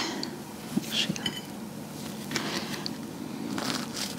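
A serrated bread knife sawing through a baked muffin on a wooden cutting board, with a few light knocks about a second in and soft scratchy strokes later on.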